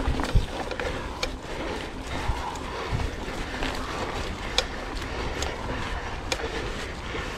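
Mountain bike riding over a dirt trail: a steady rush of tyre and wind noise with scattered sharp clicks and rattles from the bike, and wind thumping on the microphone a couple of times.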